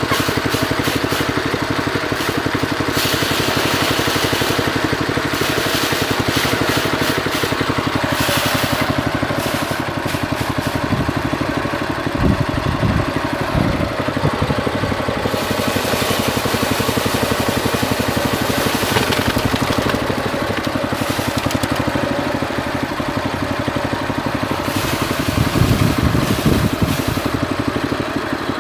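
Homemade rice threshing machine running steadily on a small engine, its low rapid chugging unbroken, with bursts of hiss coming and going every few seconds.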